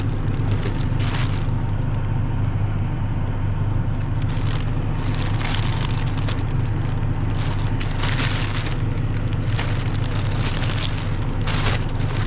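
Black plastic garbage bag rustling and crinkling in irregular bursts as it is handled around a catch of fish, over a steady low hum.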